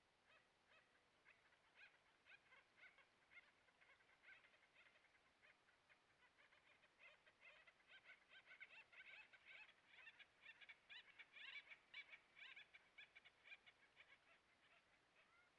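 A faint chorus of many short, rapid animal calls overlapping one another. It grows denser and louder toward about three-quarters of the way through, then thins out near the end.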